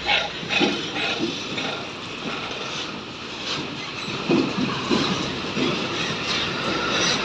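Hino fuel tanker truck rolling past over a rough railway level crossing, its diesel engine running under a steady rumble of tyres. A series of clunks comes about four to five seconds in as the wheels bump over the rails, and the sound gets louder toward the end as the truck comes close.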